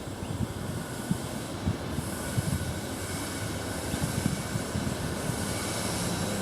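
Coal freight train coming out of a railway tunnel: a steady rumble of the train running on the rails, slowly growing louder.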